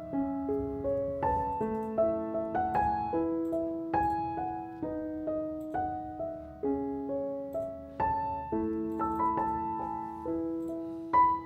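Background music: a gentle solo piano melody of single notes over held lower notes.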